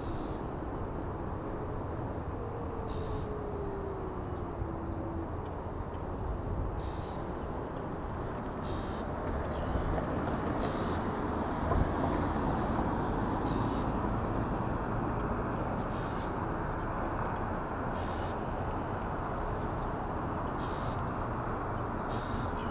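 Steady rumble of wind and road noise from riding an electric scooter along city streets, with a brief falling whine a few seconds in and scattered faint clicks.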